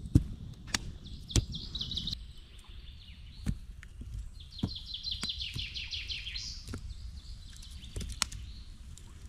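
A songbird singing two high, rapid trilled phrases, one about a second and a half in and a longer one around five seconds in. Several sharp knocks are scattered through, the loudest right at the start.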